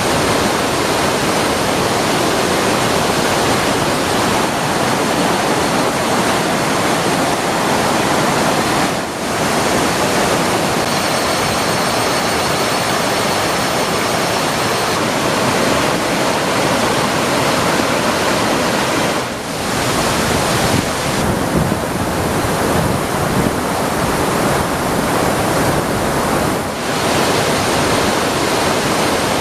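A waterfall in heavy spate after torrential rain: a loud, steady rush of falling water, briefly dipping three times.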